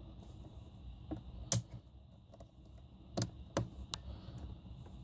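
Small sharp clicks and taps of wire ends and connectors being handled and fitted into the terminal strips of a boat's electrical panel. There are about five clicks: the loudest comes about one and a half seconds in, and a quick run of three follows a little past three seconds.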